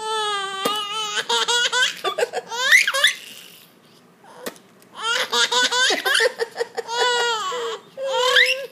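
Baby laughing hard: two long bouts of high-pitched laughter with rising squeals, separated by a pause of about two seconds.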